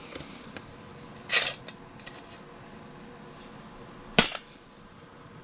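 Two sharp clacks of small metal parts being handled and set down, the first about a second and a half in with a brief rattle, the second a single sharper knock a few seconds later.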